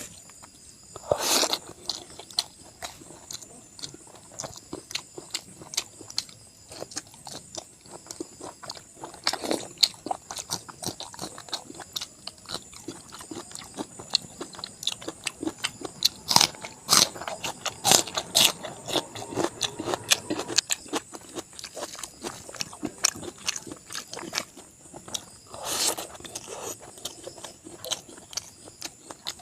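Close-miked eating sounds: pork, rice and curry chewed with wet smacks, bites and irregular sharp mouth clicks. There are a few louder bites about a second in, near the middle and near the end.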